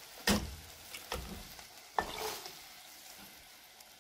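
Green salsa sizzling as it fries in hot oil in a pot, broken by three sharp knocks about a second apart, the first the loudest.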